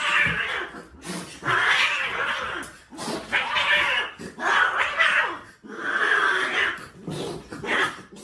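Cat meowing loudly and repeatedly: a series of about five drawn-out calls, each about a second long.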